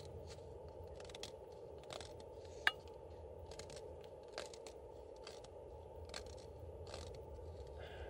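Small freshly lit campfire crackling: scattered sharp pops, with one louder snap a little under three seconds in, over a steady low background noise.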